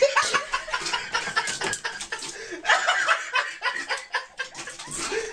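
People laughing off-camera in quick, choppy bursts.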